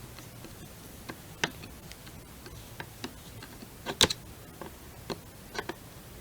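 Irregular small clicks and taps of metal parts and tools as a screw is fitted into the rifle's lower assembly, the loudest a double click about four seconds in.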